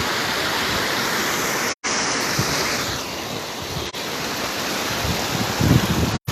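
Steady rush of a waterfall, a dense hiss of falling water, broken by a brief silent cut about two seconds in and another near the end. Wind buffets the microphone in low gusts near the end.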